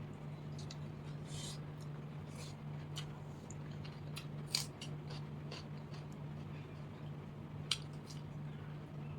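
A person chewing and crunching crisp fried snacks (chanachur and fried potato) mixed into soaked rice: a run of short, sharp crunches, two of them louder, about halfway through and near the end. A steady low hum runs underneath.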